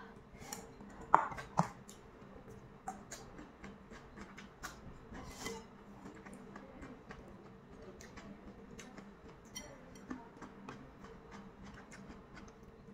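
Close-up eating sounds: crisp cucumber and lettuce being bitten and chewed, with many small crunching and wet mouth clicks and two sharper crisp snaps about a second in. A faint steady hum runs underneath.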